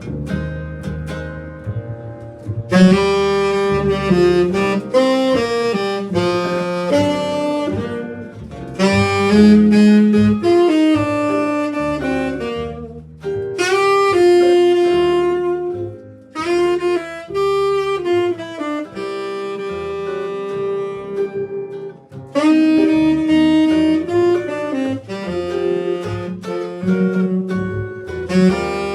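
A band playing jazz-style music, a saxophone carrying the melody in phrases with short breaks between them over a bass line.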